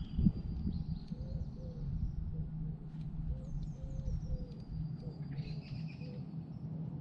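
Birds singing outdoors: a pigeon coos a low, repeated phrase through most of the stretch while a small songbird gives high, falling chirps a couple of times. A single sharp knock comes right at the start.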